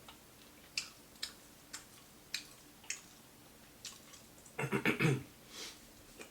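Close-miked mouth sounds of eating a crispy fried honey hot chicken wing: a string of sharp, separate crunches, roughly one every half second. About four and a half seconds in comes a short, louder burst of the eater's voice.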